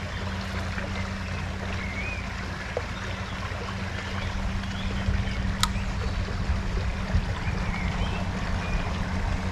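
Steady rush of running water at a canal, with a few faint bird chirps and a single sharp tick about halfway. An uneven low rumble grows from about halfway.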